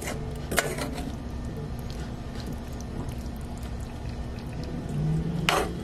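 A metal spoon stirring chunks of beef and peppers in thick gravy in a cast iron skillet, with a few short clinks of the spoon against the pan at the start, about half a second in, and near the end, over a low steady hum.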